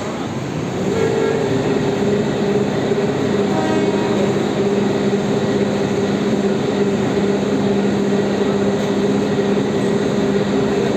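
Heavy machinery running steadily: a loud drone with a low steady hum and a higher steady tone, coming up about a second in.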